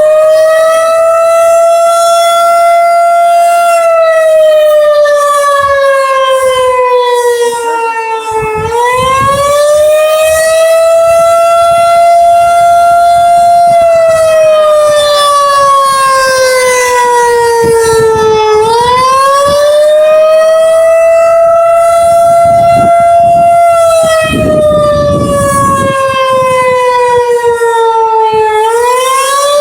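Tornado siren sounding loud and close during a test. Its single tone climbs, holds high, then slides slowly down, and the cycle repeats about every ten seconds.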